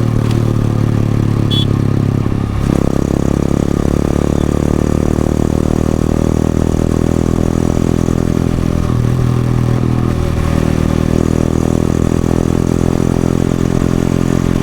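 A fully stock Yamaha FZS-V3 motorcycle's single-cylinder engine and exhaust running steadily under way. The engine note changes about two and a half seconds in.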